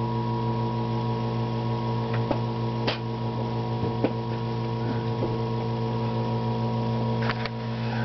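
Small nebulizer compressor pump humming steadily as it pushes air and cigar smoke through a home-made smoke tester into an engine's intake for a vacuum-leak test. A few light clicks and taps sound over the hum.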